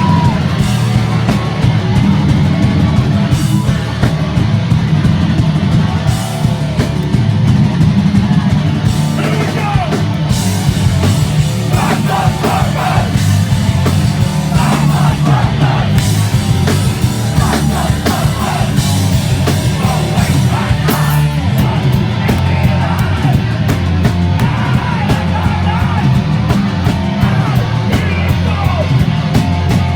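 Hardcore punk band playing live at full volume: distorted guitars, bass and pounding drums, with shouted vocals over them.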